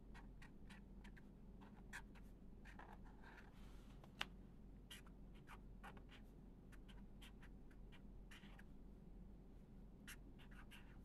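Faint scratching of handwriting: a quick run of short pen-on-paper strokes, with one sharper tap a little after four seconds in.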